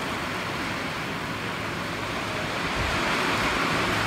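Strong thunderstorm wind rushing steadily, louder for the last second or so.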